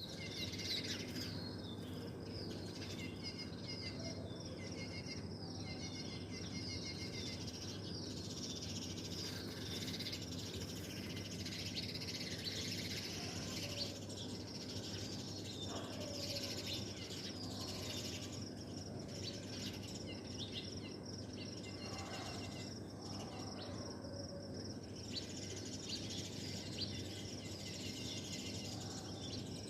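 Many small birds chirping and twittering in quick, repeated high notes, a dense morning chorus, over a steady low hum.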